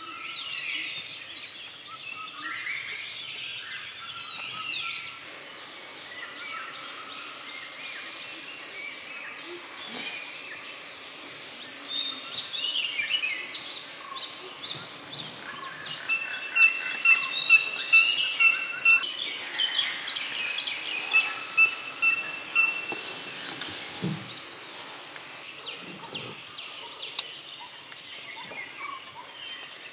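A chorus of barbets, frogs and other forest birds calling and chirping over one another. It is busiest and loudest in the middle, with a repeated high piping note. A steady high whine runs through the first few seconds.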